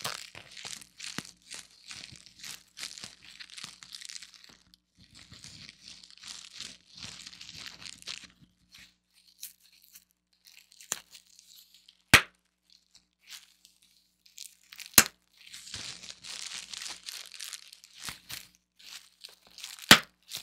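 Plastic bubble wrap crinkling and crackling as it is squeezed and rubbed by hand. Three sharp, loud pops of individual bubbles burst under a fingertip come in the second half, the last near the end.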